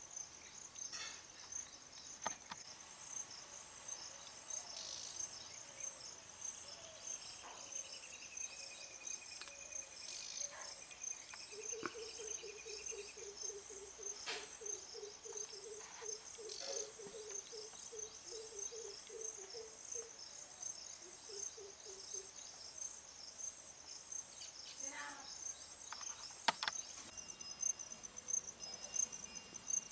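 Steady, high-pitched insect chirping, with a lower, rapid pulsing sound joining in for about ten seconds in the middle and scattered clicks.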